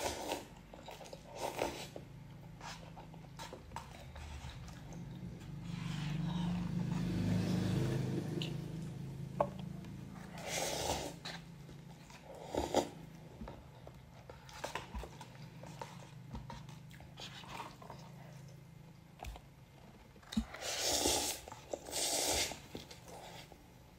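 Pop Mie instant cup noodles being slurped and chewed close to the microphone, with a few short slurps, the loudest about 11 seconds in and twice around 21–22 seconds, and quieter chewing between them. A low hum runs for a few seconds in the middle.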